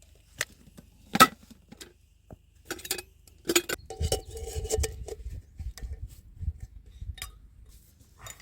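Hard objects clinking and knocking: a string of separate sharp clinks, with one about four seconds in ringing on briefly.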